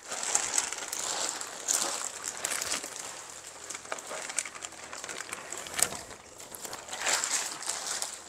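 Plastic fish-transport bag crinkling and rustling as it is handled and slipped into a second bag, with a sharp click about two-thirds of the way in.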